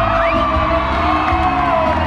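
Live pop-opera concert music from band and orchestra, with a steady low beat and a long held note that ends near the close. Audience whoops and cheers rise over it.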